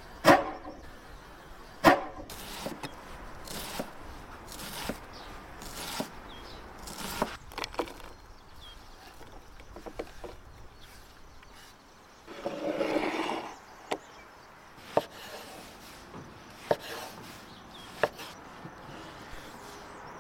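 Large kitchen knife cutting onion and then tomatoes, with sharp separate chopping strokes on a wooden board, two loud ones in the first two seconds. A little past halfway comes a rustling scrape lasting about a second and a half as chopped onion is slid off the board into a bowl.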